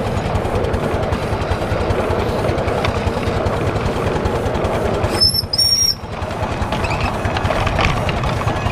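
7¼-inch gauge miniature locomotive running along the track, heard from the footplate: a steady rumble of wheels on rail with a quick, even beat. About five seconds in, two short high-pitched whistle toots.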